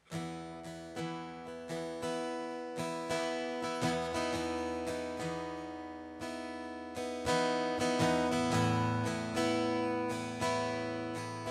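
Solo steel-string acoustic guitar strumming chords in a steady rhythm as a song's instrumental intro, the chords ringing between strums.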